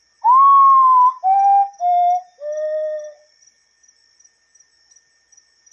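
Common potoo (mãe-da-lua) singing its mournful whistled song: one long note, then three shorter notes stepping lower each time. A cricket trills steadily and faintly behind it.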